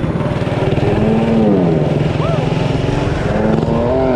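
Minibike's 212cc single-cylinder four-stroke engine, built to stage two with an aftermarket header pipe, running under the rider. Its pitch drops after about a second as the revs come off, then climbs again near the end as it pulls.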